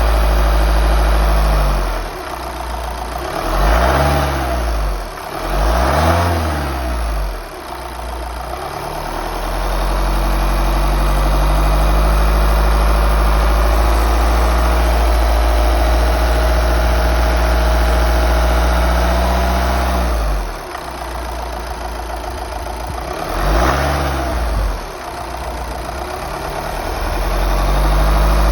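Volkswagen T6 van engine idling steadily, revved up and let fall back a few times: twice a few seconds in and once more near the end. It runs evenly, with no coughing.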